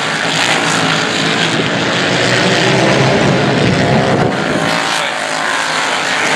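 A pack of racing motorcycles passing at speed, many high-revving engines overlapping into one dense, steady din.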